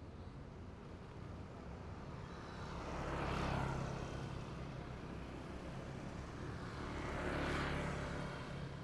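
Two motor vehicles passing on a city street one after the other, each swelling and fading, the first loudest about three and a half seconds in and the second about seven and a half seconds in, over a low steady engine hum.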